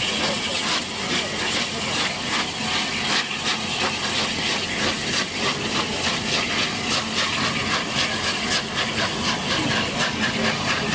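Southern Railway Battle of Britain class three-cylinder 4-6-2 steam locomotive moving off with its train: sharp exhaust beats over a steady steam hiss, the beats coming quicker as it gathers speed.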